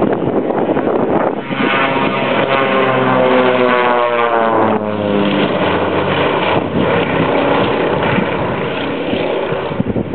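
Grumman Goose's twin engines and propellers at takeoff power going past. The propeller drone falls steadily in pitch as the plane passes, then carries on as a steady noise.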